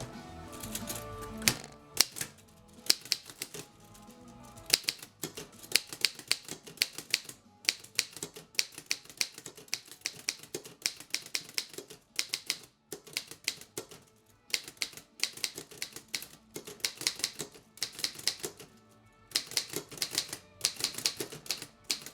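A 1927 Underwood No. 5 manual typewriter being typed on: the keys strike in quick runs of sharp clacks, with brief pauses between the runs.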